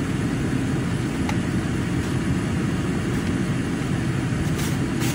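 Steady low vehicle rumble heard inside a car cabin, with a few faint short clicks.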